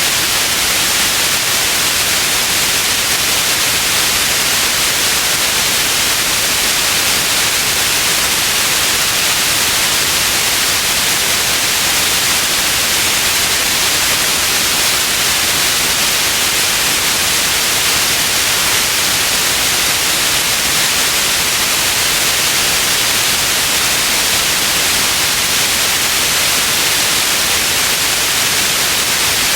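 Steady white noise: an even, unchanging hiss weighted toward the high end.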